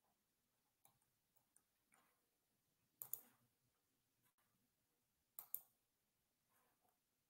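Faint computer mouse clicks in a quiet room: a few soft ticks in the first two seconds, then two sharper clicks about two and a half seconds apart.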